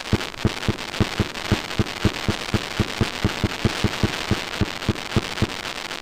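Fireworks going off in a rapid, evenly spaced barrage of bangs, about three or four a second, over continuous crackling.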